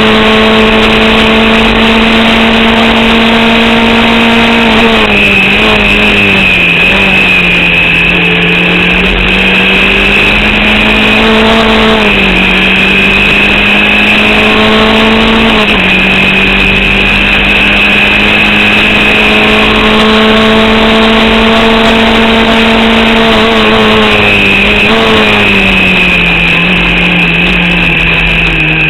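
Formula Vauxhall 8v single-seater race car engine running hard at fairly steady revs. Its pitch dips and recovers a few times and sags slowly near the end, as the car lifts and shifts. The engine is misfiring and short of power from an alternator and battery fault.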